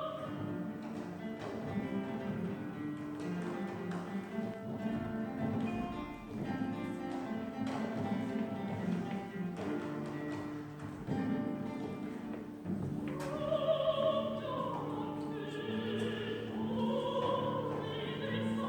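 Large guitar orchestra playing an instrumental passage of many plucked notes, with a soprano voice coming back in about two-thirds of the way through, singing with a wide vibrato over the guitars.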